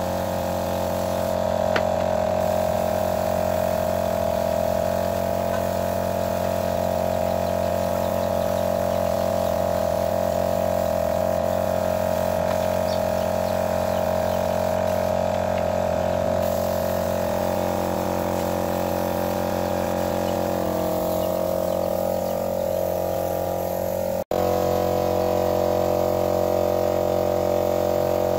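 Spray gun hissing while an air compressor runs steadily, spraying finish onto wood. The hum cuts out for an instant near the end.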